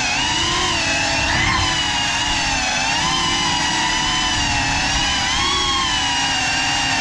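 GEPRC CineLog35 cinewhoop drone's motors and ducted propellers whining, heard from the GoPro mounted on it; the pitch keeps rising and falling with the throttle as it flies.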